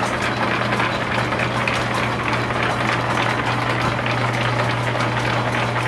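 Antique Champion post drill press running under line-shaft power: a steady low hum from the drive under a continuous clatter of its belts, pulleys and gears.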